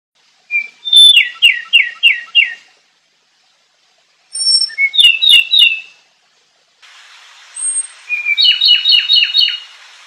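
A songbird singing three short phrases, each a brief lead-in note followed by a quick run of about five falling notes. A steady faint hiss comes in shortly before the third phrase.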